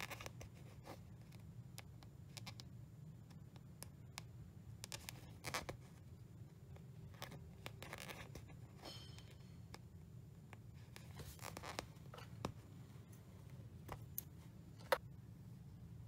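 Cross-stitch floss drawn through 14-count aida fabric: irregular short, scratchy pulls and small clicks of the needle, a few seconds apart, over a steady low hum.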